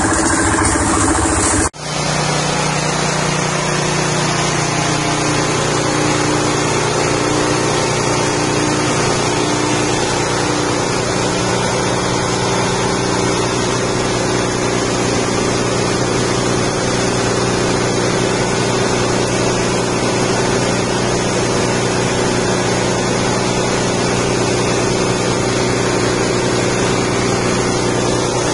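Rice-husk grinding mill driven by a 6.5 hp petrol engine, running steadily at a constant speed. About two seconds in, the sound drops out for an instant and comes back with a slightly different tone.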